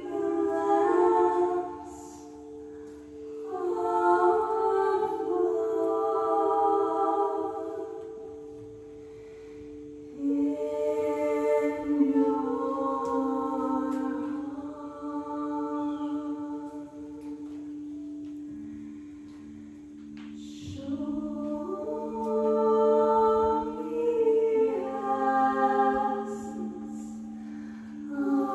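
Frosted crystal singing bowls ringing in steady sustained tones, with a lower bowl tone coming in about two-thirds through. Wordless singing voices run over them in several long, gliding phrases with short pauses between.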